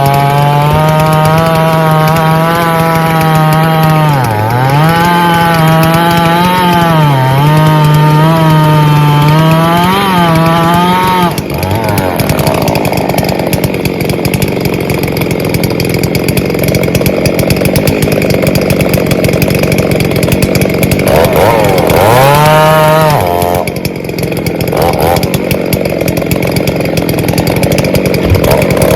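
Gas chainsaw cutting into a log: the engine runs at high revs with its pitch dipping and recovering as the chain bites. Partway through the clean engine note gives way to a long rough stretch of chain tearing through wood. The saw revs up freely once briefly before cutting again.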